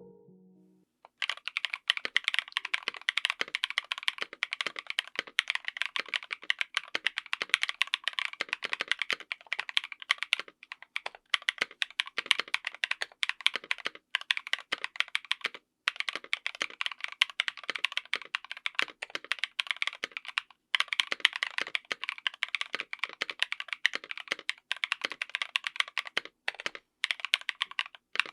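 Fast typing on a full-size mechanical keyboard fitted with stock Chosfox x JWK DD (Ding Dong) linear switches on an FR4 plate: a dense run of keystrokes that starts about a second in, with a few brief pauses.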